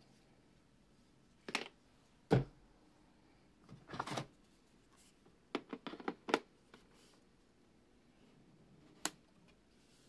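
Handling sounds as a camera lens is lifted out of its cardboard box: separate sharp clicks and knocks, the loudest a knock about two and a half seconds in, a short rustle about four seconds in, a quick run of small clicks around six seconds, and one more click near the end.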